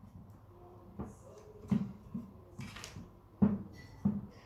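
Plastic castor wheels being fitted to the plastic drum of a Karcher WD 3 wet and dry vacuum: about six sharp plastic knocks and clicks at irregular intervals as the wheels are handled and pressed into their slots.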